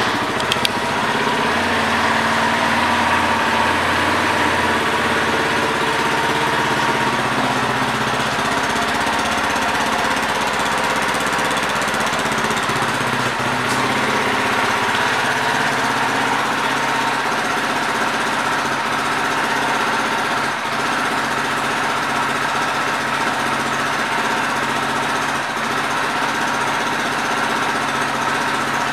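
Kayo Jackal 200 ATV's single-cylinder four-stroke engine idling steadily, freshly started.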